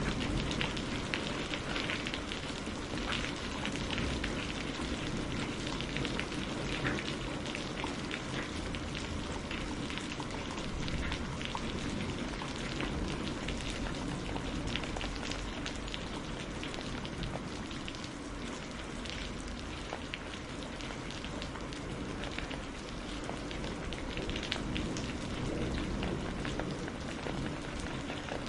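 Steady rain falling and pattering on a surface, with many close individual drops ticking.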